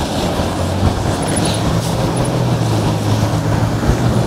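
Wind rushing over the microphone and road noise from an electric moped riding in traffic, with a steady low hum joining about a second in.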